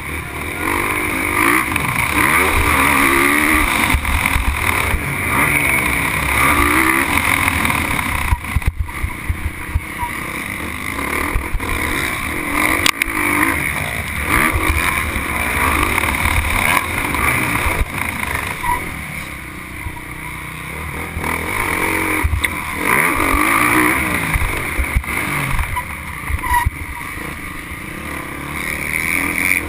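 Motocross motorcycle engine heard from on the bike, revving up and down again and again as it is ridden hard round a dirt track. The throttle is shut off briefly a few times, around a third of the way in, in the middle and near the end.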